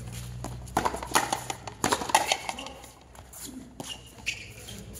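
Frontenis rally: the rubber ball is struck by stringed rackets and hits the front wall, giving a string of sharp smacks over the first few seconds.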